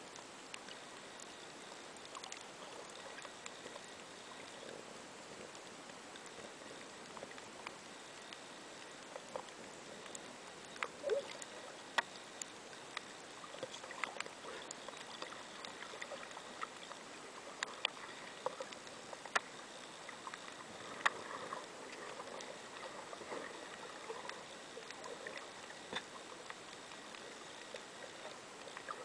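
Underwater ambience heard through a submerged camera: a steady hiss with scattered sharp clicks and crackles, more frequent in the second half.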